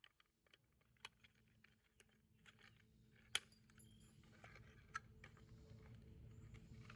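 Faint scattered clicks and light rattles of small metal and plastic parts being handled inside a truck door while the lock cylinder's retaining clip is worked into place; the sharpest click comes about three seconds in.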